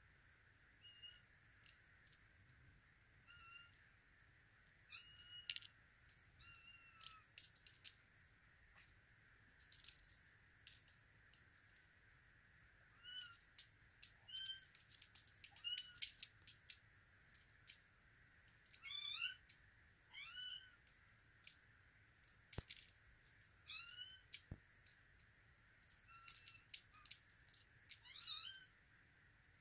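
Russian Blue kitten mewing again and again: short, high-pitched calls that bend up and down, coming in little clusters, with scattered sharp clicks in between.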